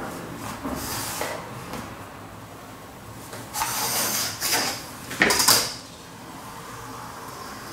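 Handling noises on a tabletop: a steel ruler and a sheet of paper being slid and moved, giving three short scraping rustles. The last, about five seconds in, is the loudest and starts sharply.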